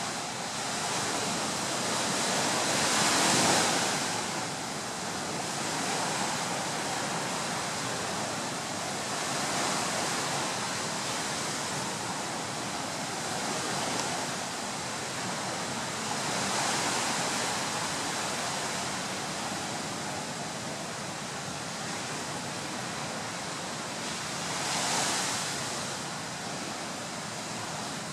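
Surf washing onto a beach: a steady rush of waves that swells and fades about every seven seconds.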